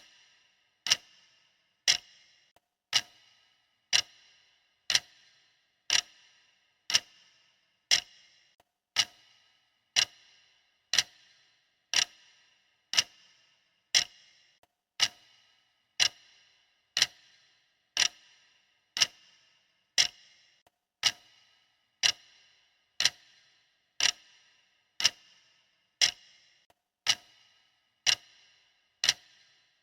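Clock ticking steadily, one sharp tick each second with a brief ring after each.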